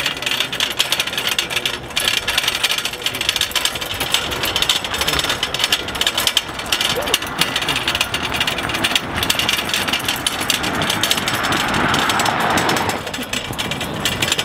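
Empty steel game cart rattling over a gravel road shoulder, its wheels clattering continuously with footsteps crunching alongside. A car swells past on the road about eleven seconds in and fades by thirteen seconds.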